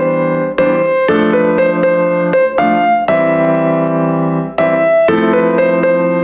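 Background piano music: a slow run of sustained chords, changing about every half second to second.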